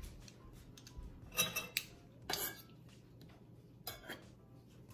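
Metal garlic press and a knife clinking and scraping as crushed garlic is scraped out of the press into a stainless steel frying pan: a handful of short metallic clicks and scrapes about a second apart.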